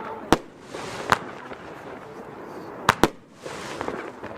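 F2 fireworks battery (Xplode Golden Scorpion) firing: four sharp reports, the last two close together about three seconds in, with a steady hiss of burning effects between them.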